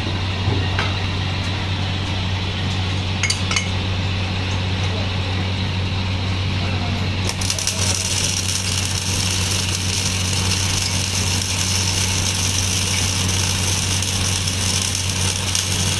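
Electric arc welding on a steel roller: a steady low machine hum throughout, with the crackling hiss of the welding arc coming in about seven seconds in.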